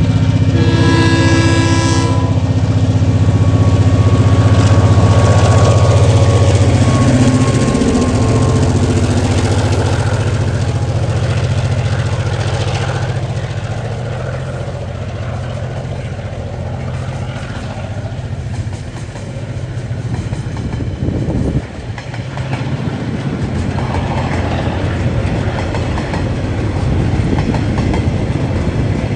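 Diesel freight locomotive's horn sounds and ends about two seconds in, over its loud engine drone, which drops in pitch as the locomotive passes around seven to eight seconds in. Then the freight wagons roll by, their wheels rattling along the rails.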